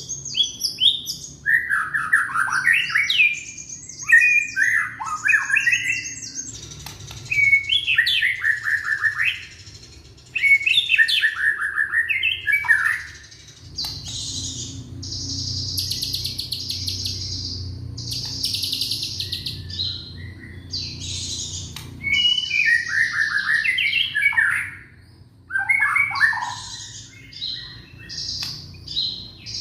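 Young white-rumped shama singing a loud, varied song of short warbled and whistled phrases that sweep up and down in pitch, with a stretch of fast, buzzy high chattering in the middle.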